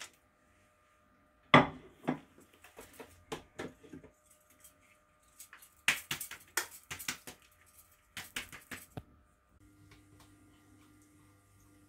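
Kitchen clatter: knocks and clicks of dishes and a plastic blender cup being handled, with a spatula working inside the cup, one sharp knock loudest about a second and a half in. A faint low steady hum starts near the end.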